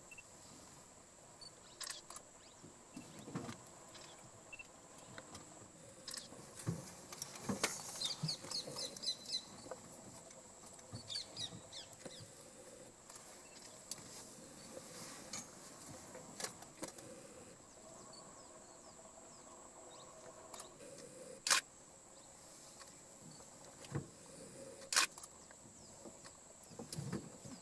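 Faint forest ambience: a steady high thin whine throughout, with short bursts of bird chirping about eight and eleven seconds in, and a few sharp clicks, the loudest two near the end.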